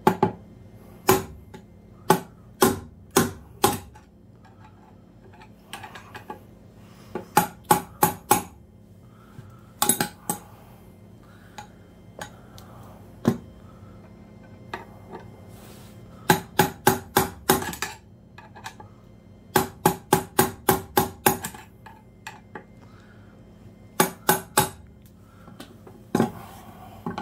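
Hammer blows on a hooked pry bar set in the slot of a Williams Super Ratchet's threaded lock ring: sharp, ringing metal-on-metal strikes in bursts of several quick blows with pauses between. This is an attempt to drive a jammed lock ring loose, and the ring is barely moving.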